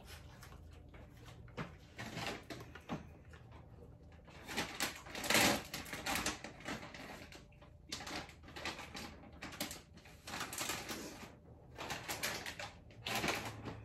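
Irregular clusters of light clicking and rustling, each about a second long, over a faint low hum.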